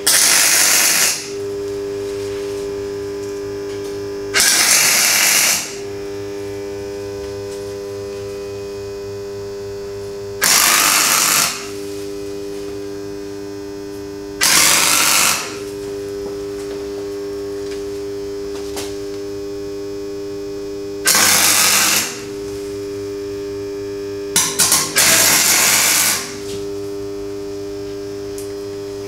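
MIG welder tack-welding a square steel tube frame: six short bursts of arc crackle, each about a second long and spread over the stretch, the last one stuttering as it starts. A steady hum runs between the welds.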